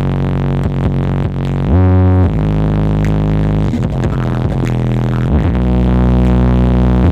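Electronic dance music blasted through a large horeg sound system with sixteen subwoofers, dominated by very heavy bass. Its deep bass notes slide up and down in pitch.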